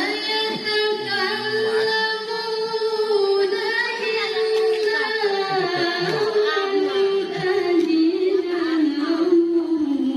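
A woman's solo voice chanting Quranic recitation (tilawah) into a microphone in a long unaccompanied melodic phrase: held notes that waver and slide in pitch, sinking lower near the end.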